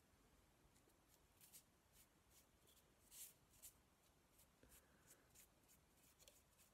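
Faint, scratchy strokes of a small paintbrush sweeping metal filings off a model locomotive's filed body chassis. The strokes come in a scatter of short swishes, the strongest a little after three seconds in.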